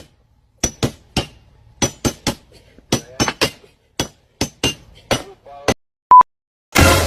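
A run of about fifteen sharp knocks, like hammer taps, in an uneven rhythm, several with a short ring. A single short beep follows near the end.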